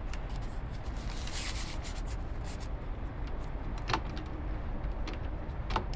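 Tow-bar bike rack's threaded clamp being screwed down tight by hand: metal rubbing and scraping with scattered clicks, over a steady low rumble.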